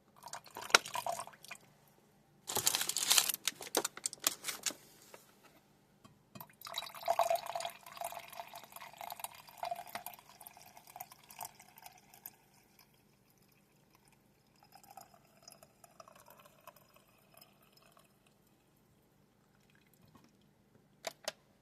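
Coffee poured from a French press into a cup in several stretches: a loud splashing pour a few seconds in, a longer steady pour after it, and a fainter trickle later on.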